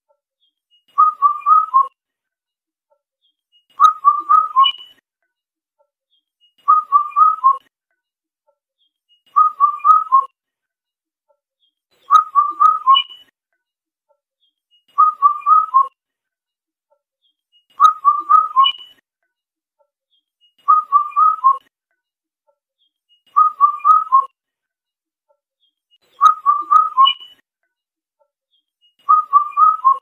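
Indian cuckoo singing its four-note whistled call, the last note a little lower, repeated about every three seconds with silent gaps between phrases.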